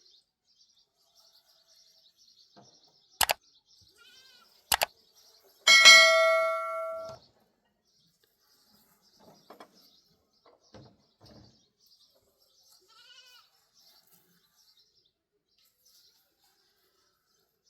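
Two sharp knocks, then a loud single ringing strike that fades out over about a second and a half. Faint animal bleats can be heard, with faint high chirping behind.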